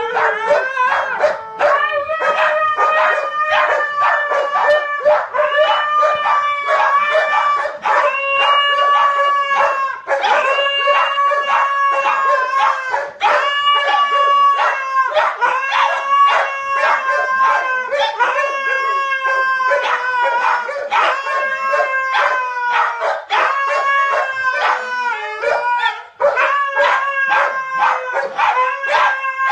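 A white husky and two other dogs howling together in long, overlapping held howls, with short barks and yips breaking in throughout.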